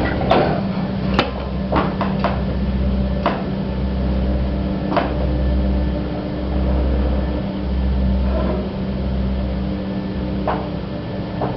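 Old gated passenger lift running: a steady motor hum with scattered sharp clicks and knocks.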